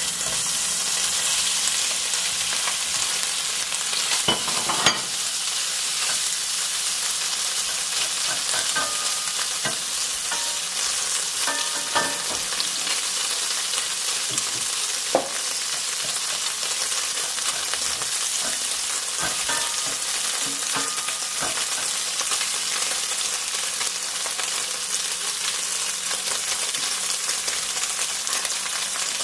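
Cubes of tail fat sizzling steadily as they fry in a hot non-stick pan, stirred with a wooden spatula that knocks against the pan a few times.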